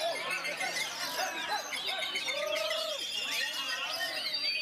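Many caged songbirds singing at once, oriental magpie-robins among them: a dense, continuous mix of overlapping whistles, trills and chirps, with a few longer held whistled notes.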